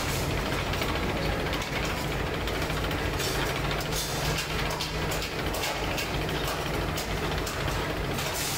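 Motor-driven roller forming machine running steadily as sheet-steel mudguard blanks are fed between its rollers: a low hum with scattered metallic clicks and rattles.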